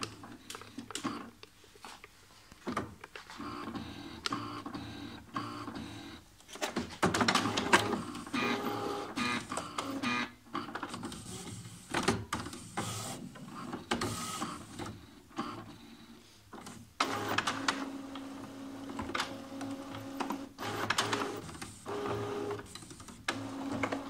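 HP Photosmart 5520 inkjet printer running its power-on routine: a few clicks, then from about three seconds in its carriage and service-station motors whir in runs, with clicks and short pauses between moves. No grinding from the service-station gear, the sign that the epoxy repair to its sheared teeth has worked.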